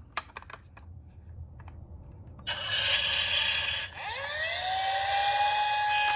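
A few light plastic clicks, then about two and a half seconds in a toy police car's siren sound starts loud. It plays as a wail whose pitch glides up and then holds steady.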